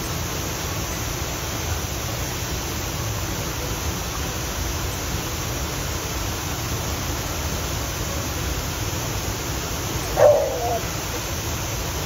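Steady rush of a waterfall, white water pouring over a rock ledge into a churning pool. About ten seconds in, one short sharp cry briefly rises above the water.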